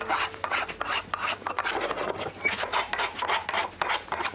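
Hand sanding on the edge of a walnut board held in a bench vise: a sanding block rubbed back and forth in quick, repeated scratchy strokes.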